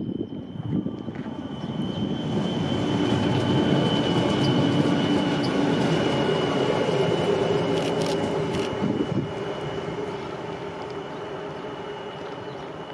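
Diesel locomotive running light past, its engine loudest about four to five seconds in and fading as it moves away, with a steady high whine over the rumble.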